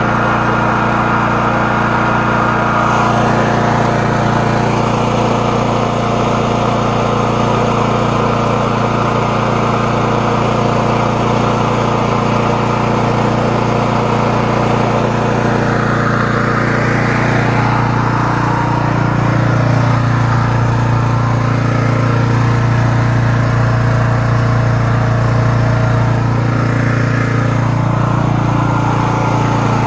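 The 13-horsepower engine of a high-pressure sewer jetter running steadily under load, with a low, even hum. Its tone shifts for a few seconds about halfway through and again near the end.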